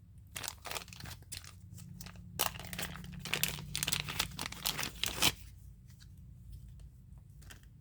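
Crinkly plastic packaging being handled and torn open, with dense crackling for about five seconds and then quieter rustling.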